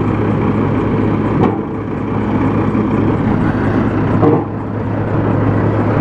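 Diesel engine of a John Deere 437E log loader running steadily while it works logs on a logging truck, with a single knock about a second and a half in.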